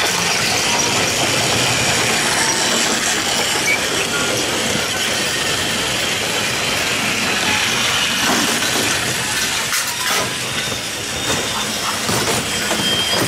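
Battery-powered Plarail toy trains running on plastic track: the small motors whir and the wheels rattle along the track in a steady stream.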